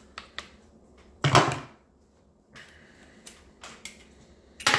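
Handling noise from plastic chainsaw parts being set down on a table: a few light clicks, a loud short scuff about a second in, and another near the end.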